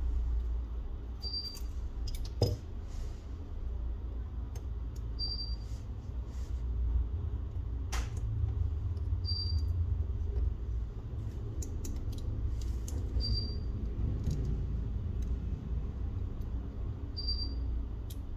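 Light handling noise of small-scale bench work on a phone: a few sharp clicks and taps over a low rumble. A short high chirp repeats about every four seconds.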